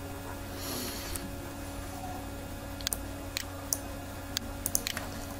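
Computer mouse clicking, a run of sharp clicks in the second half, over a steady electrical hum, with a short soft hiss about half a second in.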